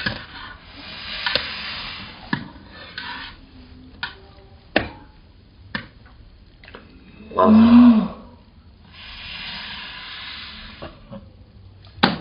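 People eating very spicy noodles: slurping and hissing breaths, a few sharp clicks of chopsticks and forks against the bowl and plates, and a loud pained groan about seven and a half seconds in.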